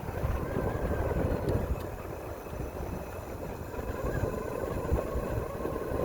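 Wind buffeting the microphone and road rumble while riding an electric bike along the street.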